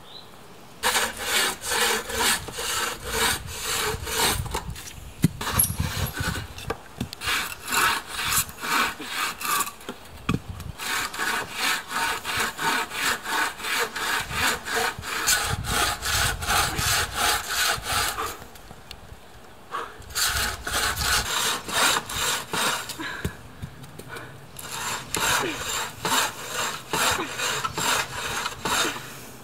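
Bow saw cutting through the wooden tops of tepee poles, in quick even back-and-forth strokes, about three a second. The sawing stops twice briefly before going on.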